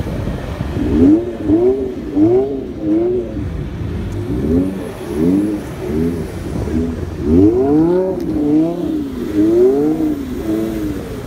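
Car engine revving up and dropping back over and over as the car drifts on snow, the revs rising and falling about every half second to a second.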